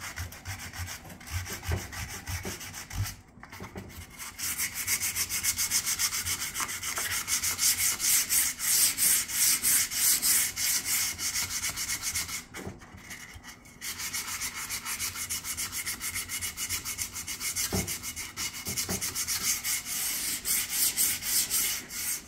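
Hand-sanding a wooden axe handle with 80-grit sandpaper, scuffing up the wood: quick back-and-forth rubbing strokes, with short pauses about three seconds in and about halfway through.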